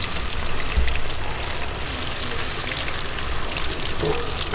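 Chicken pieces deep-frying in hot oil in an iron kadai, the oil sizzling steadily, with a dull thump about a second in.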